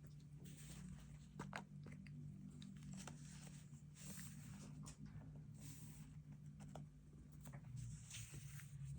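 Faint stationery work on a paper planner: short scratching strokes of a pen and paper rustling, with small taps and clicks, over a low steady hum.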